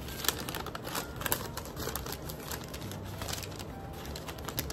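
Green paper plant wrapping crinkling and rustling as it is pulled open by hand, a string of small irregular crackles.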